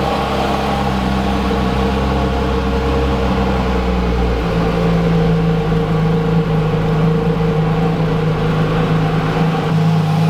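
Porsche GT3 RS flat-six, fitted with aftermarket headers and exhaust, idling loudly and steadily while it warms up after start-up. Its tone shifts lower-register balance about four and a half seconds in.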